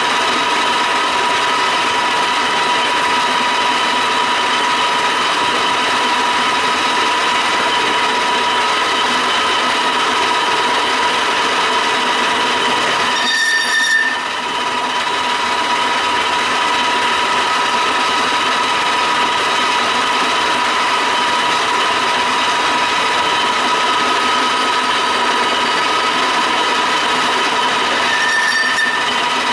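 Q1313 pipe threading lathe running steadily under power, its gear train giving a constant whine of several steady tones over machine noise. About halfway through there is a brief change with an added higher tone and a momentary drop in level, and a similar one near the end.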